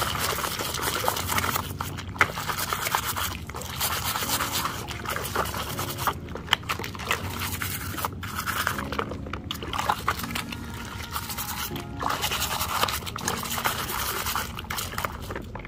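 Background music over a brush scrubbing a toy excavator, with water dripping and splashing.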